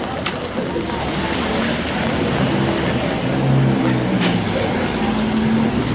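Busy street ambience: a steady rush of traffic noise, with some low indistinct sounds rising in the second half.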